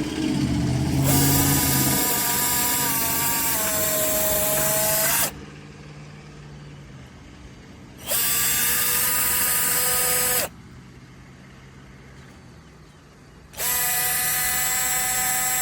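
AVID Power 20V cordless drill motor running in three trigger-pulled bursts of a few seconds each, a steady whine that starts and stops sharply. Its pitch sags slightly near the end of the first run.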